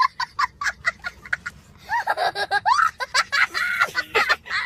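A person laughing in short, quick bursts, about four a second. From about two seconds in it becomes a looser, longer run of laughing voice sounds.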